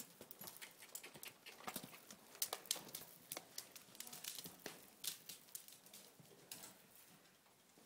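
Faint, irregular hoofbeats of a young colt carrying a rider over soft arena dirt: a string of soft thuds and clicks, growing fainter near the end.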